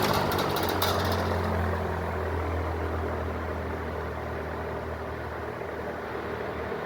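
Lakewood 3-speed box fan running with a steady low motor hum and a rush of air; the air noise eases down over the first two seconds and then holds steady.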